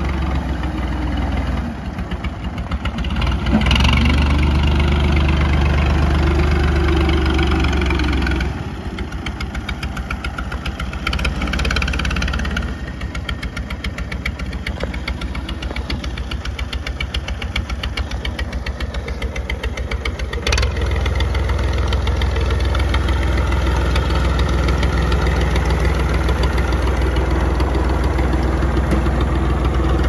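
Massey Ferguson backhoe loader's engine running as the machine is driven. It revs up about two to four seconds in, settles lower after about eight seconds, and after a short sharp knock about twenty seconds in runs louder and steady.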